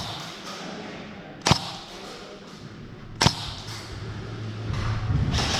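Two sharp single shots from an airsoft gun, about two seconds apart, followed near the end by a rising rush of noise with a low hum.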